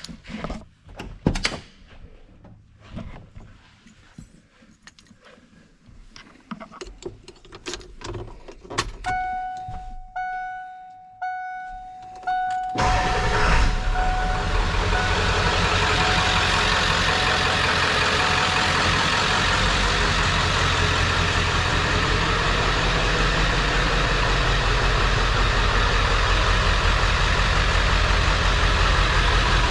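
Door clicks and thunks, then a dashboard warning chime beeping four times about once a second, then the 1997 Ford F-350's 7.3-litre Power Stroke turbo-diesel V8 starts about thirteen seconds in and settles into a steady idle.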